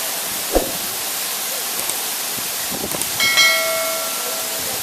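Steady hiss of rushing water. There is a short knock about half a second in, and a clear ringing metallic tone about three seconds in that fades away.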